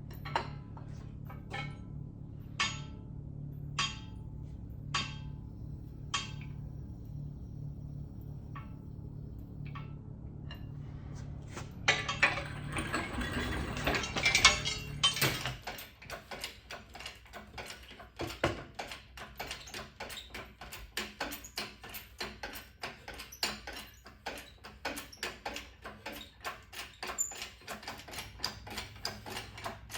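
Portable generator running with a steady low hum while metal tools and parts clink sharply every second or two. About 12 seconds in there is a louder, rough noisy stretch. A few seconds later the hum cuts off, and rapid, even ticking follows.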